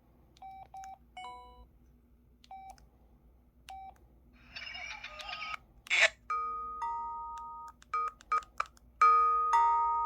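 Curitel PH-L4000V mobile phone's speaker: several short keypress beeps, then an effect sound that starts as a hiss, a sharp hit about six seconds in, and ringing electronic chime tones that each fade away. The loudest tones come near the end.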